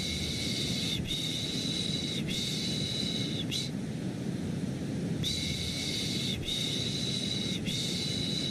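Rhythmic human shushing for lulling a baby to sleep, a run of three 'shh' sounds of about a second each, a pause of about a second and a half, then another run of three. Underneath is a steady rumbling white-noise bed.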